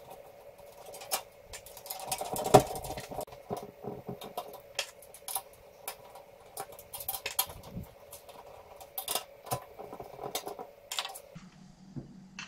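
Scattered clicks and small metallic clinks from a steel Cooler Master Elite 110 cube PC case being worked on with a screwdriver, as screws and parts come out and knock against the chassis, with one louder knock about two and a half seconds in. A faint steady hum runs underneath and stops near the end.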